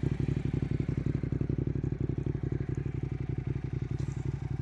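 Motorcycle engine idling steadily, with an even, rapid beat of exhaust pulses and no revving.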